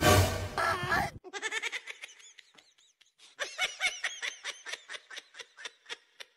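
A loud, noisy sound effect lasting about a second, followed by a dubbed-in laughter effect: a long run of quick, high-pitched 'ha-ha-ha' pulses, several a second.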